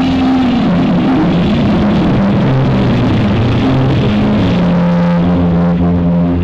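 Live electric guitar solo with band backing over a PA, heavily distorted and smeared by a faulty camera microphone, with notes held long in the second half.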